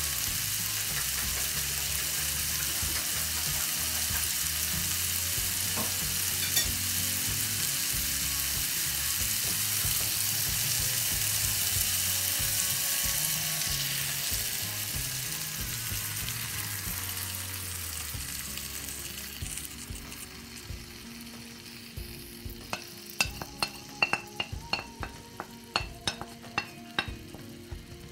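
Vegetables and ham frying in a nonstick pan with a steady, loud sizzle that dies down about halfway through as beaten eggs are poured in to cool the pan. Near the end, a wooden spatula stirs the mixture, knocking and scraping against the pan in a quick run of clacks.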